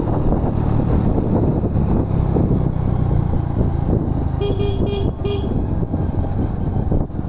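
Steady wind and engine rumble of a motorcycle ride, with a vehicle horn beeping three quick times about four and a half seconds in.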